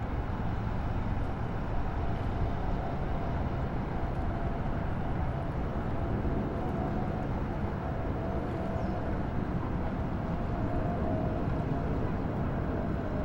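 Steady low rumble of distant engine noise, with a faint hum that comes in a few seconds in and slowly falls in pitch.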